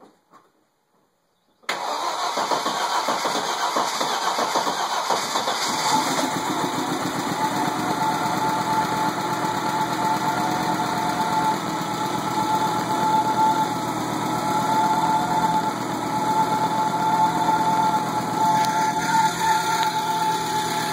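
Rebuilt Audi 4000's 20-valve turbo engine starting about two seconds in on its first start after the rebuild, then running at a steady idle with a steady whine over it.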